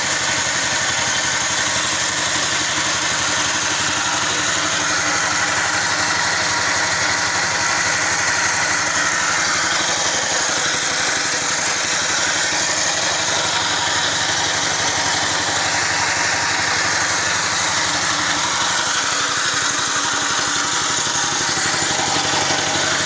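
Small engine of a portable belt-driven cable winch running steadily at an even speed.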